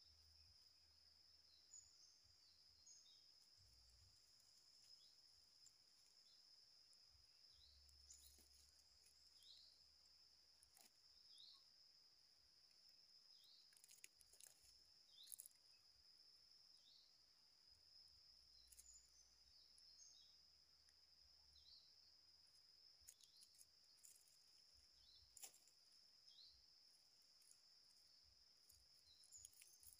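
Faint forest ambience: a steady high insect drone, with short, high, falling chirps every second or two and a few scattered ticks.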